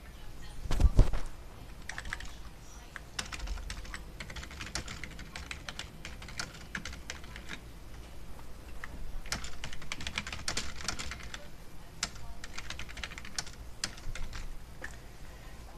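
Typing on a computer keyboard, irregular runs of key clicks, with one loud thump about a second in.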